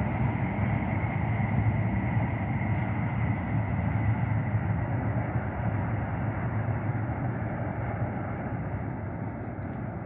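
A car driving along a road, with steady engine and tyre noise and a faint steady whine. The noise fades gradually over the last few seconds.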